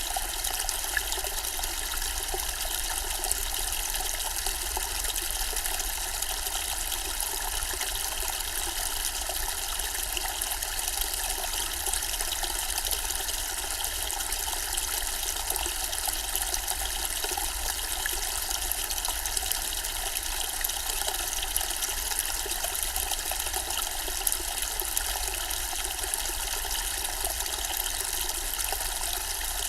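Zen-style water fountain, water trickling steadily and evenly without a break.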